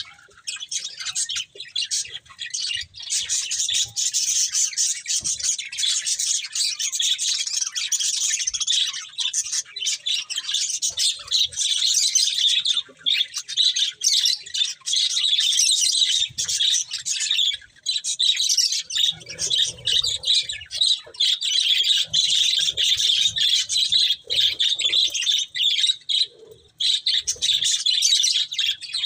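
Budgerigars chirping and chattering continuously in a dense, high twitter, with short lulls about halfway through and near the end.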